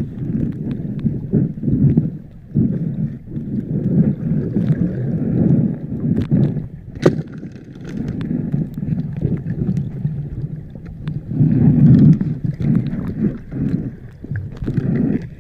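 Muffled underwater sound of water moving around the camera: an uneven low rumble and sloshing that swells and fades, with a few sharp clicks.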